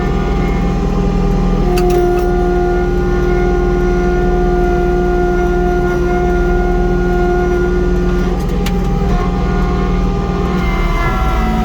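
Kubota LX2610 compact diesel tractor running steadily under load, driving its snowblower through heavy wet snow. A higher whine holds for several seconds in the middle, and the pitch shifts slightly near the end.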